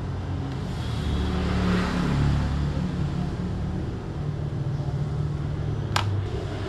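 Low rumble of a motor vehicle running, swelling about two seconds in, with one sharp click near the end.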